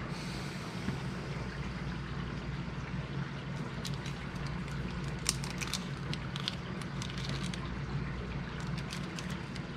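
Small drone motors, screws and a small plastic zip bag being handled on a silicone mat: scattered sharp clicks and crinkles from about three and a half seconds in, over a steady background hum and hiss.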